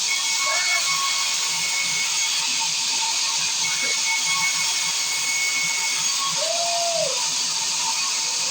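Sawmill circular saw running and cutting pine, a steady high hiss with a faint constant whine.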